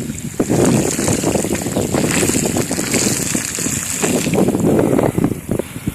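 BMX bike tyres splashing through floodwater on a road, with wind buffeting the microphone in irregular gusts.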